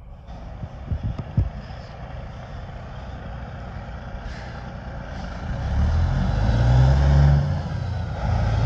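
Semi tractor-trailer garbage hauler pulling out and driving past, its diesel engine getting much louder from about halfway through as it comes close. The engine note drops off briefly near the end, then picks up again.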